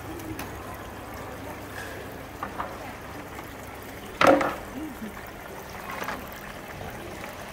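Small decorative stone water fountains trickling and splashing steadily, with a murmur of voices behind and one short, loud voice about four seconds in.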